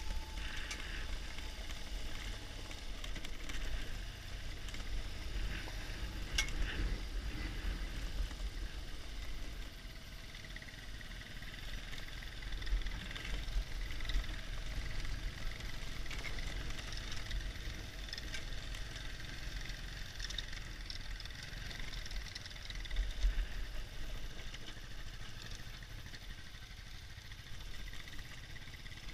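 BMW R1200GS Adventure's flat-twin engine running at low speed on a rough dirt track, a steady low rumble mixed with wind and tyre-on-gravel noise on the helmet microphone. A single sharp click about six and a half seconds in.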